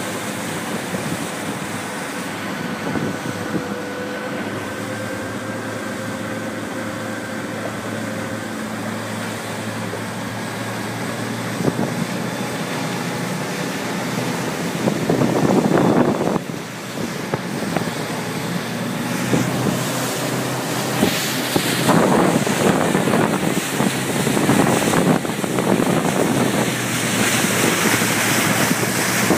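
Wind buffeting the microphone and water rushing and splashing along a sailing trimaran's hulls, with a faint steady hum in the first several seconds. The water noise comes in louder, uneven surges from about halfway through.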